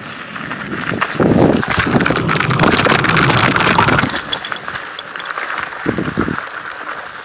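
Mountain bike jolting and rattling over a rough dirt trail, tyres crunching on dirt, with wind buffeting the microphone. It is loudest for the first few seconds, then eases off.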